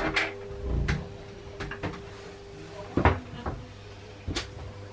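A series of separate knocks and clunks, like cupboard or cabin doors being opened and bumped, over a steady hum with a constant tone.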